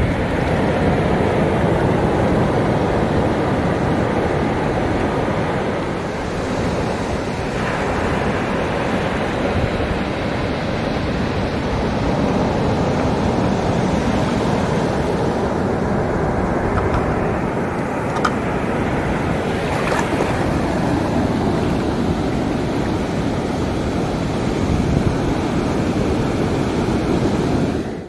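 Shallow sea surf washing steadily over a sandy beach, with wind buffeting the microphone.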